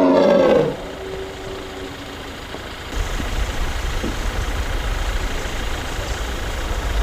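An Amur tiger's loud wavering call ends in the first second, followed by a fainter held tone. From about three seconds in, a steady low rumble sets in.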